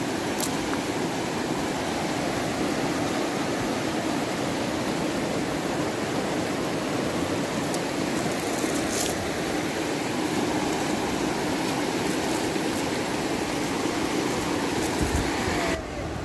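Steady rush of flowing river water, with a couple of faint clicks; the rush drops away sharply near the end.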